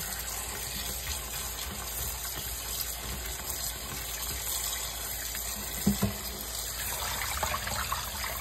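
Kitchen tap running in a steady stream into a colander of blackberries sitting in a bowl of water in a stainless steel sink, splashing as gloved hands swish the berries. Two brief knocks about six seconds in.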